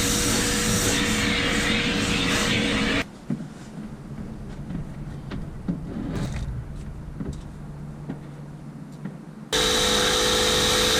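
A power tool runs steadily and cuts off abruptly about three seconds in. Then come quieter clicks and knocks of handling and fitting, until a power tool starts again near the end with a higher whine.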